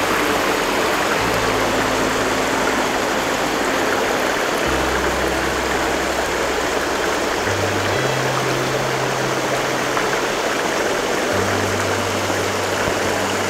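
Small rocky mountain stream running over stones, a steady loud rush of water. Soft background music with low held notes that change every second or two plays beneath it.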